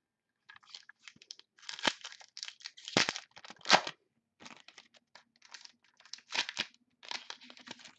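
Wrapper of a pack of football trading cards torn open and crinkled by hand: a run of irregular crackling rustles, the loudest a little under four seconds in.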